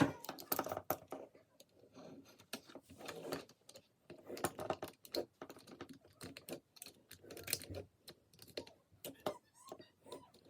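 Plastic ice maker housing being cut by hand to make a groove, irregular clicks and scraping strokes in short clusters.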